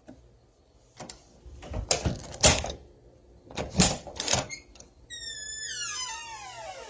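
Old door: a few clattering knocks of the latch and handle, then a long hinge creak that slides steadily down in pitch.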